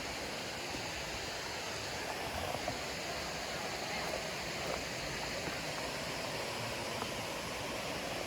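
Steady rushing of a distant waterfall, an even wash of falling water with no breaks.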